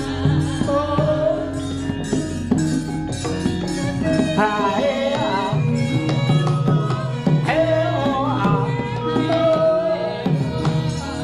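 Javanese gamelan music accompanying a wayang kulit shadow-puppet play: women's voices sing wavering, ornamented lines over steady ringing tones from the bronze instruments and a hand-drum rhythm.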